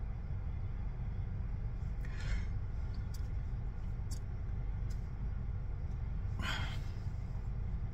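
Steady low rumble inside a car, with a man sniffling twice while crying, about two seconds in and again near the end, and a few faint clicks between them.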